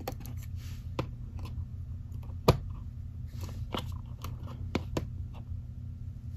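Small sharp plastic clicks and taps as a jointed action figure is handled, posed and set down on a diorama base; the loudest click comes about two and a half seconds in.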